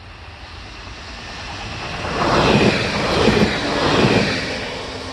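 Pesa Elf electric multiple unit passing close by on the tracks. Its rumble builds and peaks about two to four seconds in with a few beats of wheel clatter, then fades.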